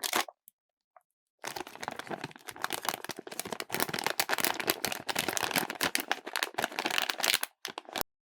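A blind bag's packaging being crinkled and torn open by hand: a dense run of crackling starts about a second and a half in and stops abruptly shortly before the end, followed by a couple of small clicks.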